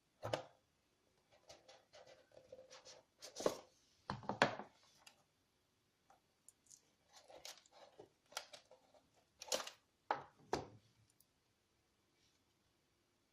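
Handling noise of unboxing: scattered clicks, taps and short rustling scrapes of packaging and small parts being handled close to the microphone. There are louder bursts about three to four seconds in and again around ten seconds in.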